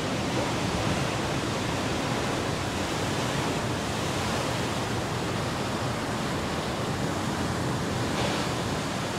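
Rough ocean surf breaking and washing over rocks: a steady, unbroken rush of noise.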